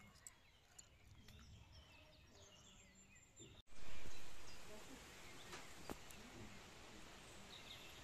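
Birds chirping faintly in the open air. A little past halfway the sound cuts, and a loud, steady rush of outdoor noise takes over, strongest at its start and then settling.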